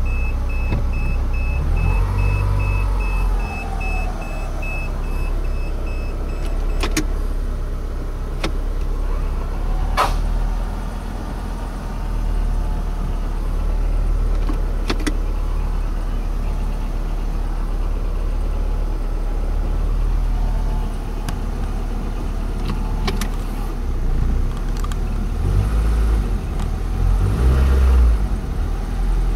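2003 Honda Civic running, with a steady deep rumble throughout. An evenly repeated electronic beeping sounds for the first seven seconds, and there are several sharp clicks later.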